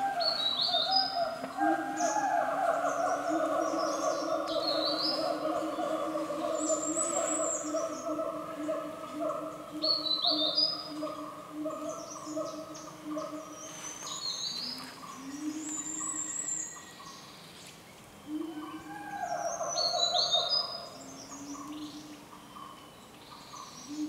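Forest birds singing: short, high, thin phrases repeat every few seconds. Beneath them runs a louder, steady, trilling lower sound that fades out about two-thirds of the way through, comes back briefly, then fades again.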